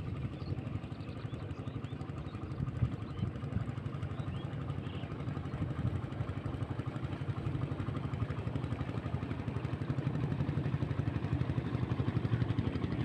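A small engine running with a rapid, even pulse, slowly getting louder.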